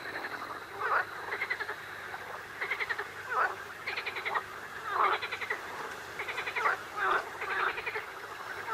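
A chorus of frogs croaking: short rattling calls from several frogs, overlapping and repeating every half second to a second.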